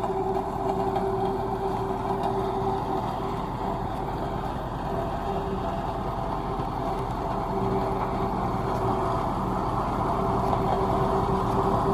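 Diesel engine of a tandem road roller running steadily, with a held mid-pitched tone over a low engine hum, growing a little louder near the end.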